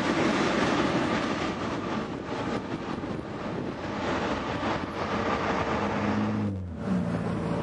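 Freight train of tank cars rolling away over the grade crossing, a steady rolling noise that eases as the last car pulls off. From about six seconds in, a diesel locomotive's engine runs with a steady low hum.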